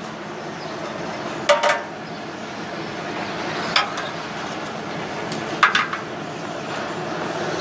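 Sharp metallic clicks and clinks as the protective caps are handled and pulled off the filler connectors of a truck's LNG fuel tank: three sets about two seconds apart, the first and last doubled, over a steady background noise.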